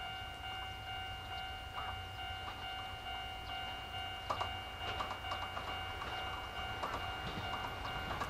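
Distant approach of a yellow Chichibu Railway 1000 series electric train: a low rumble, with faint clicks of wheels on the rails growing more frequent from about halfway in. A steady high tone runs throughout.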